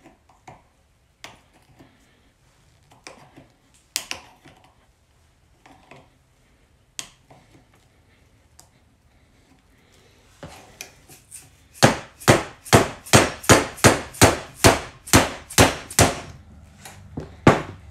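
Small clicks and scrapes of a flat-tipped tool working against a padlock's hardened steel back plate. About two-thirds of the way through comes a quick, even run of about fifteen mallet blows, roughly three to four a second, on the tool's handle, then one last blow. The blows drive the tip through the plate to cut it open can-opener style.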